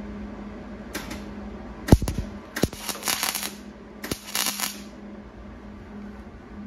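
MIG welder tack-welding thin old sheet steel: four short bursts of crackling arc, the second opening with a sharp pop, over a steady low hum.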